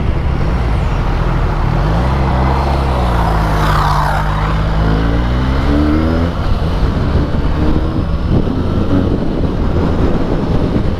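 Benelli 302S's 300 cc parallel-twin engine running through its stock exhaust while riding, over steady rushing road noise. Its pitch dips and then climbs again around the middle.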